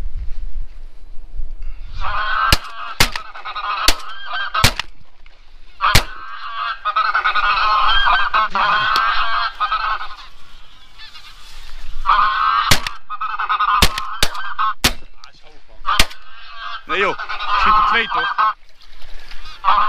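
Geese honking, many calls overlapping in several long bursts. About ten sharp clicks are scattered among them.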